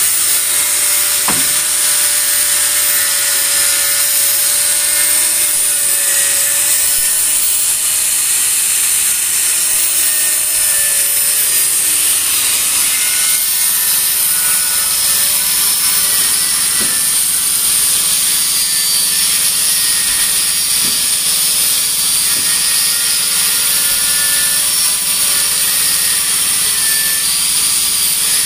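Oxy-fuel cutting torch hissing steadily as it burns through a steel leaf spring pack, with a faint wavering tone under the hiss.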